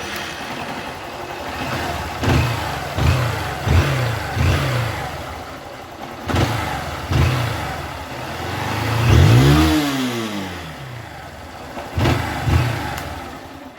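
Honda CG 160 Start's single-cylinder four-stroke engine idling and revved with a string of short throttle blips and one longer rev about two-thirds of the way through. Freshly adjusted valve clearance: the owner says the valve noise is gone.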